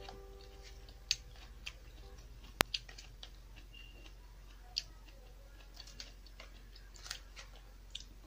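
Scattered light clicks and taps of a plastic fork scooping potato salad from a plastic tub, irregular and a few seconds apart, over a low steady hum.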